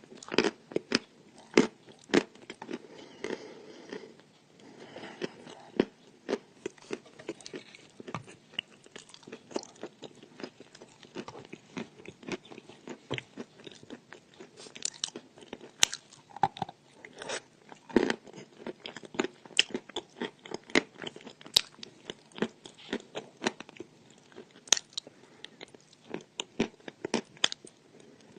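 A person biting and chewing chalk: an irregular, steady run of crisp crunches and crackles, with now and then a louder bite.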